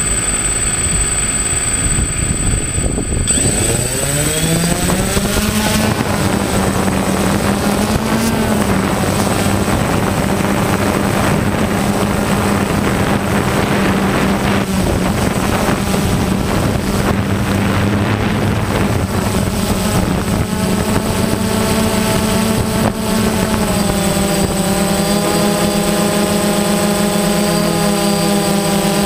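Multirotor drone's electric motors and propellers heard from its onboard camera: they spin up with a rising whine about three to six seconds in as the drone lifts off, then run with a steady pitched hum as it climbs and flies. A thin high whistle sounds throughout.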